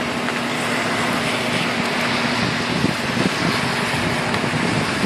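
Heavy rain falling steadily on roofs and a wet street, an even hiss, with a faint steady hum under it that stops about halfway through.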